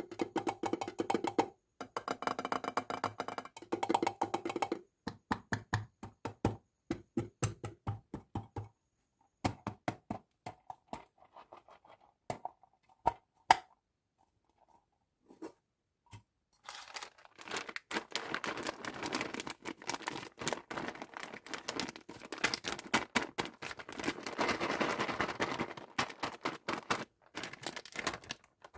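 Candy and toy packaging handled close to the microphone. For the first half there is a run of taps, clicks and knocks, thinning to sparse knocks in the middle. From a little past halfway there is steady crinkling and rustling of wrapper material.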